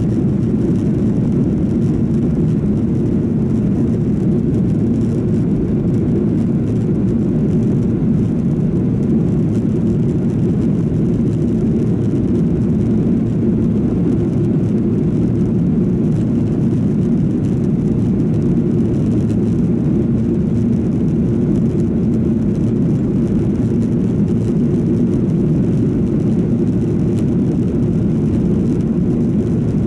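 Steady low rumble of a Boeing 737-800's CFM56 jet engines and rushing airflow, heard from inside the passenger cabin in flight.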